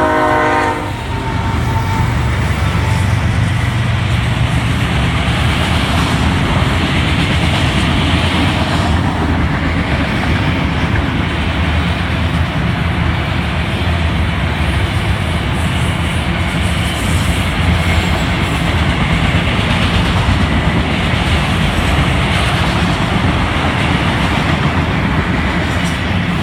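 Freight cars, autoracks then double-stack intermodal cars, rolling past close by: a steady rumble and rattle of wheels on rail. The tail of a locomotive's multi-tone horn chord cuts off about a second in.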